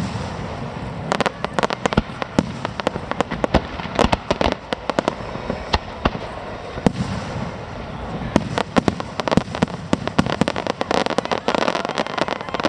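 Fireworks display: a rapid, irregular barrage of sharp bangs and crackles, thickest about a second in, around four seconds, and over the last few seconds.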